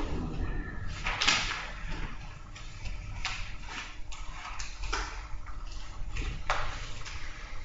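Papers being handled at a meeting table: scattered rustles and light knocks, the loudest about a second in and again near the end.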